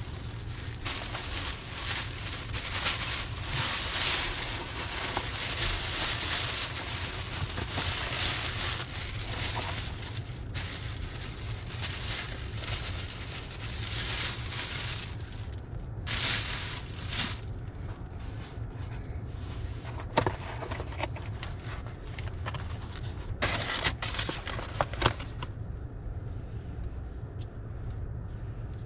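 Plastic carry-out bag and paper food wrapping rustling and crinkling as they are handled, in long bursts that thin out after about the halfway point, with a few sharp clicks later on. A steady low hum runs underneath.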